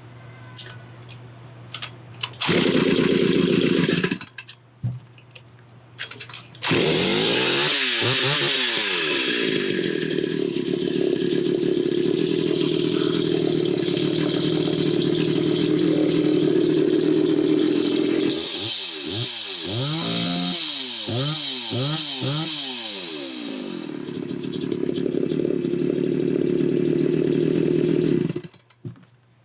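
1989 Homelite 330 two-stroke chainsaw being started. It runs briefly and stops, then starts about seven seconds in, is revved up and down several times while running, settles to a steadier lower run, and is shut off suddenly near the end.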